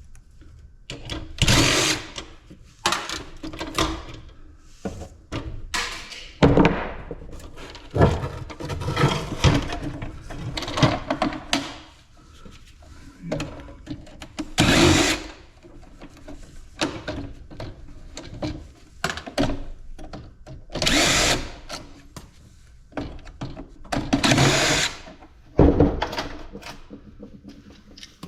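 Handheld power drill running in short bursts of under a second, several times over, between knocks and clunks of the appliance's parts being handled.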